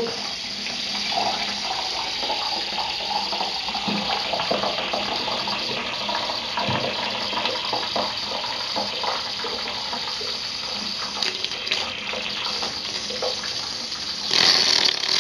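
Residual air pressure forcing condensate out of an air compressor tank's opened drain nipple: a steady hiss of escaping air with spattering water, louder briefly near the end. The water is condensate that has collected inside the tank.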